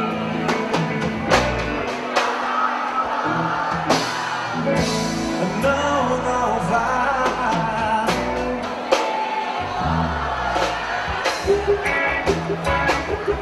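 A live pop love song: band music with singing, sung in Portuguese.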